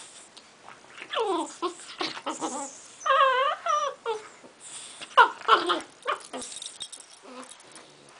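Puppies play-wrestling, with several whining, yelping cries that slide down in pitch, one wavering cry about three seconds in, and scuffling noises between.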